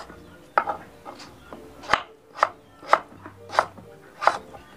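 A kitchen utensil striking in a steady rhythm, about two sharp knocks a second, as food is prepared by hand.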